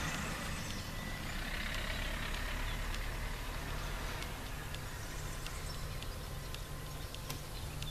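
Steady low rumble of a truck's diesel engine idling nearby, heard from inside a parked truck cab, with a few faint clicks.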